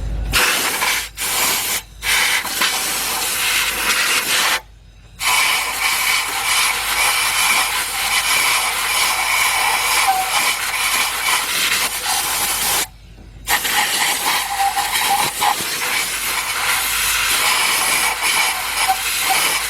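Compressed air hissing hard from a blow gun on an air line, blowing old antifreeze out of a hole in the engine. It comes in long blasts, broken by a few short pauses, the longest about five and thirteen seconds in.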